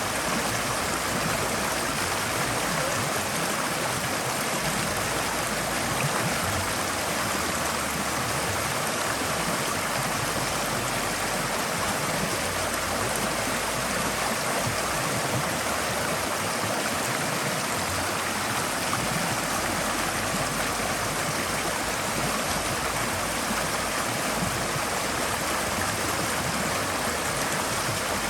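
Forest stream flowing steadily over rocks: a continuous, even rush and babble of running water.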